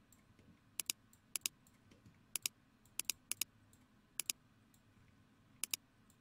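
Computer mouse button clicked about seven times at irregular intervals, each click a quick press-and-release pair, as faces are picked one by one in a 3D modelling program.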